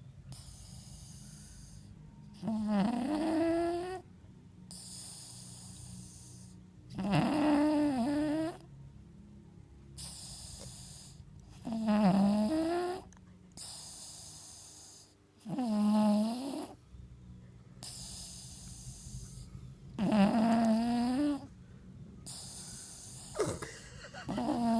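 A pugalier, a pug–cavalier King Charles spaniel cross, snoring in its sleep. There are six loud snores, each about a second and a half long and coming roughly every four seconds, with quieter breathing between them.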